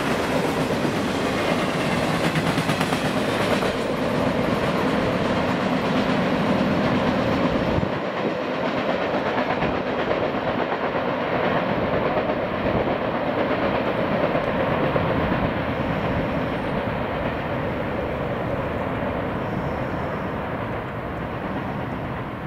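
CSX mixed freight train's cars rolling past, steel wheels running over the rails in a loud, steady rumble that grows gradually fainter in the second half as the end of the train moves away.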